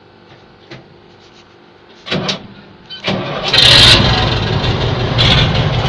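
KrAZ truck's diesel engine being started: a short spell of cranking about two seconds in, then it catches about a second later, flares up briefly and settles into a steady idle.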